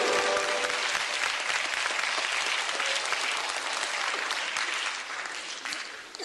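Audience applauding, a dense patter of many hands clapping that thins and fades near the end. The last notes of the music die away just as the applause takes over.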